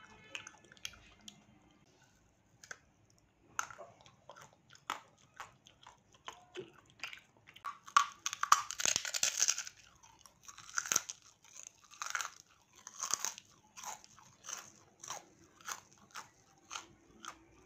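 Crunchy food being bitten and chewed: scattered small crunches, then a loud run of crunching about eight seconds in as a stack of hard white disc-shaped snacks is bitten through, followed by steady rhythmic crunching chews.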